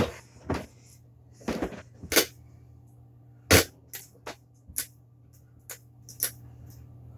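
A run of about a dozen irregular knocks and bumps as a mini fridge and other things around it are handled and shifted, over a faint steady low hum.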